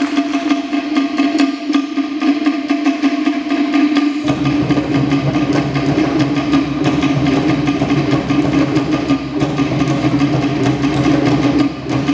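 Tahitian drum ensemble playing a fast 'ote'a dance rhythm: rapid wooden strikes of to'ere slit-log drums, with a deep pahu bass drum joining in about four seconds in.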